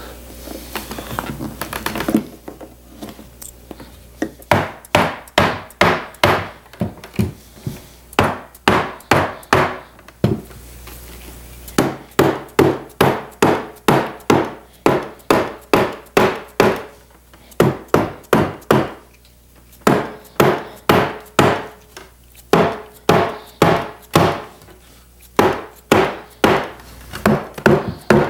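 Mallet blows on a wooden chair frame, about two a second in runs with short pauses, knocking the old glued dowel joints apart. The first two seconds hold scraping as staples are pried out of the wooden seat rail with nippers.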